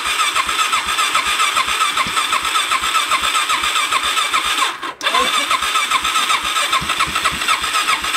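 Dirt bike's electric starter cranking the engine in a rapid, even chug without it catching, an engine that has not been started in a while. The cranking breaks off for a moment about five seconds in, then starts again.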